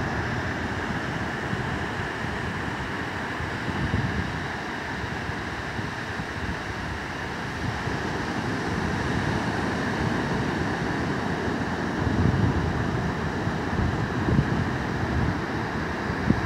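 Ocean surf breaking and washing up a flat sandy beach in a steady wash, with gusts of wind buffeting the microphone, heavier in the last few seconds.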